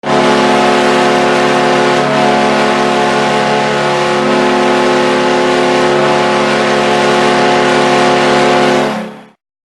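Buffalo Sabres goal horn blasting: one long, loud chord of several steady tones that starts abruptly, holds for about nine seconds and cuts off near the end.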